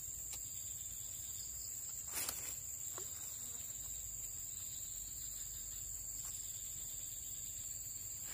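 Steady, high-pitched insect chirring, with a few faint clicks and one brief louder knock about two seconds in.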